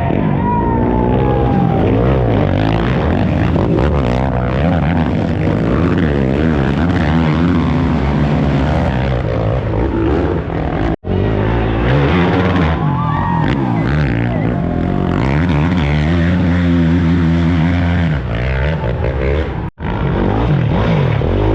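Racing ATV engines running hard and revving up and down as the quads race by. The sound cuts out abruptly twice, about halfway through and near the end.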